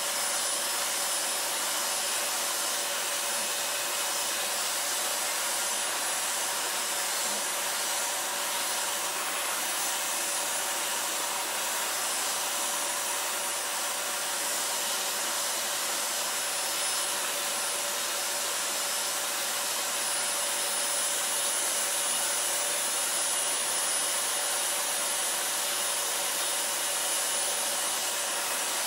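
Vacuum cleaner running steadily, a constant whine over the rush of air, as its hose nozzle is drawn through a Shiba Inu's fur to suck out loose hair.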